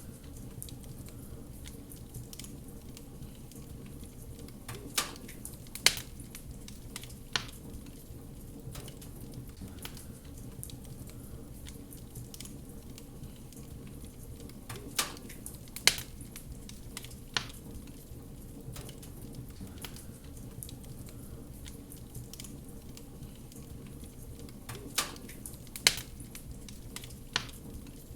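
Wood fire burning in a fireplace: a steady low rush with scattered small crackles and, about every ten seconds, a cluster of three sharp pops.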